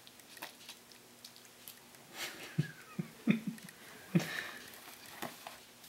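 A baby's soft breaths and small mouth sounds and grunts while mouthing a mesh fresh-food feeder. The sounds come as a handful of short, quiet noises after about two seconds of near quiet.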